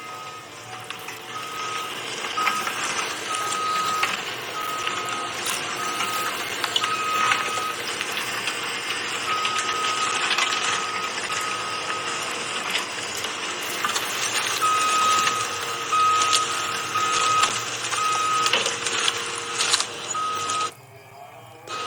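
Excavator at work loading a truck: heavy machinery running, with a single-pitched warning alarm beeping in short repeated beeps that pause now and then, over knocks and clatter.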